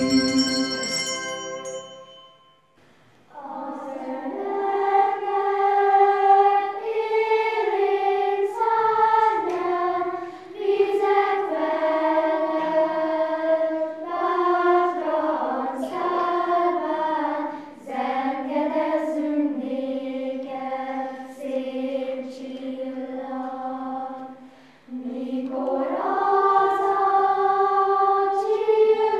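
A set of handbells ringing out and dying away. After a short pause, a children's choir sings, phrase after phrase, with a brief break between phrases near the end.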